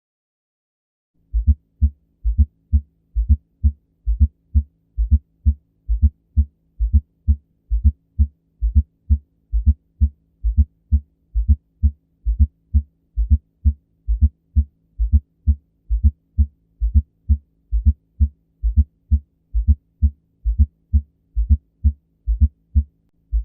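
Heart sounds heard through a stethoscope, with a fourth heart sound (S4, atrial gallop). Low thuds repeat steadily at about two a second, starting about a second in, over a faint steady hum. An S4 is the sign of late atrial contraction against a stiff or thickened left ventricle, as in diastolic heart failure or left ventricular hypertrophy.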